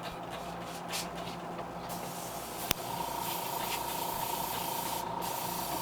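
Airbrush spraying paint in short hissing bursts, then a longer steady spray from about two seconds in, with one sharp click partway through.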